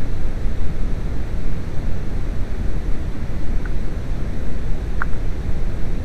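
Steady artificial masking noise laid over the soundtrack to hide shop radio music: an even hiss with most of its weight in the bass. Two faint clicks show through it in the second half.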